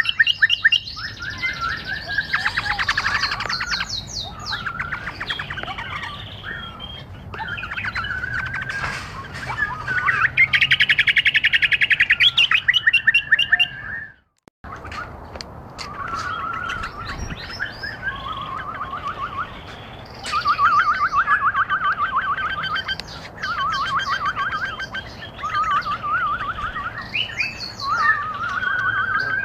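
Bulbuls chirping and singing in quick, repeated trilled phrases, with a brief sudden break about halfway through.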